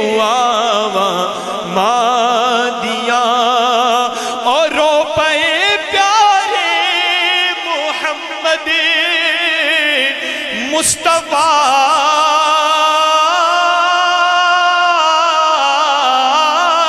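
A man's voice singing a Punjabi devotional couplet in a slow, drawn-out melody through a microphone, holding long notes with a wavering vibrato. A short click about eleven seconds in.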